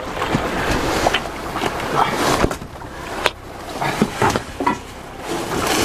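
Knocks and scrapes against a small boat's side as a big common skate is hauled aboard with gaffs, over a steady low rumble of wind and sea. The sharpest knock comes about three seconds in.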